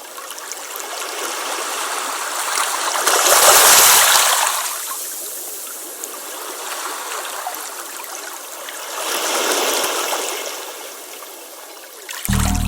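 Water rushing and splashing past a moving boat, a steady hiss that swells twice.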